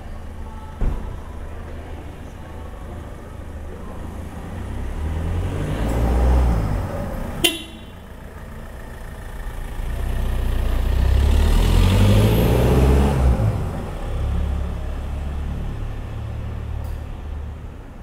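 Quiet night street ambience with a low steady hum of distant traffic. A car passes, building to about seven seconds in and ending in a brief sharp toot, then a heavier vehicle with a low engine rumble passes, loudest between about ten and fourteen seconds. A single knock sounds just under a second in.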